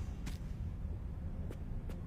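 Low steady background hum with three faint, short clicks.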